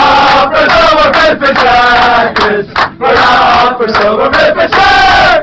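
A group of men chanting and singing loudly together in short repeated phrases: a sports team's victory chant.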